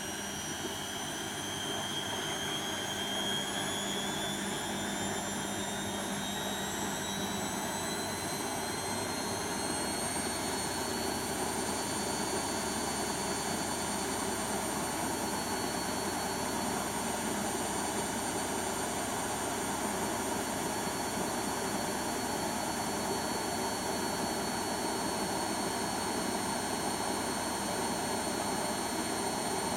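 Beko WTB741R2A front-loading washing machine spinning up. The motor whine climbs in pitch for about the first ten seconds, then holds steady as the drum runs at a 600 rpm spin.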